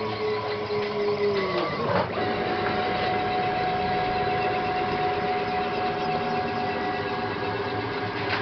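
Stepper motors of a homemade CNC machine whining as the axes move: two tones glide down in pitch for the first couple of seconds, a short knock about two seconds in, then two steady tones held for about five seconds over the machine's running noise.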